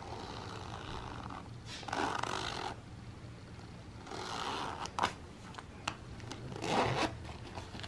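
Zippers on a textile motorcycle jacket and pants being pulled open and shut: about four rasping pulls of chunky zipper teeth, with a couple of sharp clicks from the zipper pull in between.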